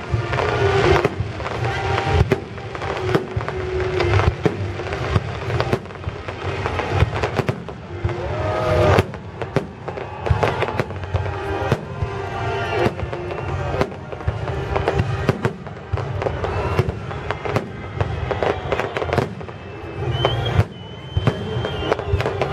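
Fireworks salute: a dense, continuous run of sharp bangs from bursting shells, one after another, with a whistle near the end.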